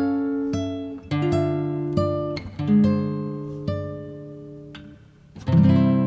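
Slow instrumental background music on a plucked acoustic guitar: single notes and chords, each ringing out and fading, with a fuller, louder chord about five and a half seconds in.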